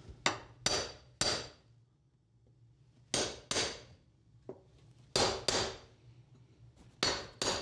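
Hammer striking a steel cold chisel set in a cement mortar joint between flagstones. There are sharp ringing blows in twos and threes, with pauses of about two seconds between the groups. The blows are breaking out the old joint to loosen the stones.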